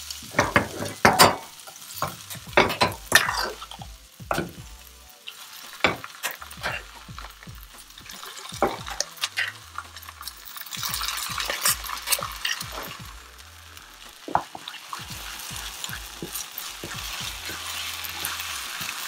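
Wooden spatula stirring and scraping a frying onion-tomato masala in a non-stick wok, with a steady sizzle. Cooked mustard greens are spooned in and stirred through, and the sizzle swells about ten seconds in and again near the end.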